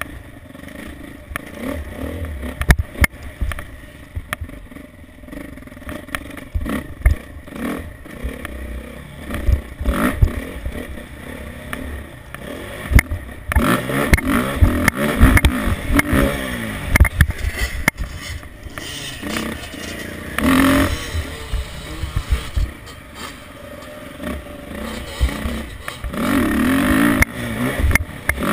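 Motocross bike engine revving up and down through a lap, with louder, rising revs about halfway through and again near the end. Sharp knocks and clatter as the bike hits bumps, and wind buffeting on the helmet-mounted microphone.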